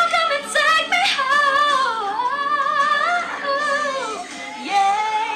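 A woman singing long held notes of a soulful ballad, her pitch gliding up and down between notes.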